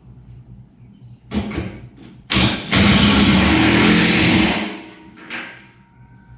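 Electric hydraulic power unit of an 11,000 lb car lift starting suddenly and running for about two seconds, then winding down as it shuts off: the lift being raised a short step.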